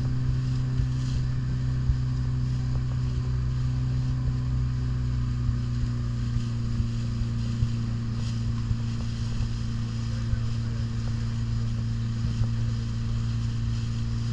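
Outboard motor of a Zodiac inflatable boat running at a steady pitch as the boat cruises over calm water.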